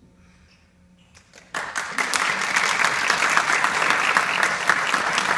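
Audience applauding: a few scattered claps, then full clapping from about a second and a half in.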